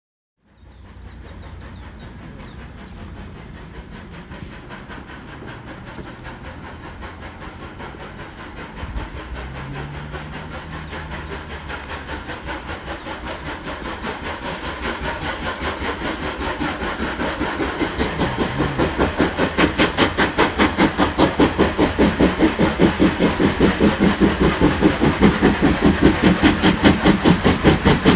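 Steam locomotive working hard as it approaches from a distance. Its exhaust chuff grows steadily louder and turns into sharp, even, rhythmic beats over the last ten seconds.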